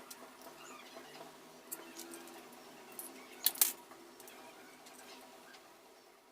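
A few sharp clicks and taps from hand tools working on a motorcycle engine being dismantled, the loudest pair about three and a half seconds in, over a faint steady background.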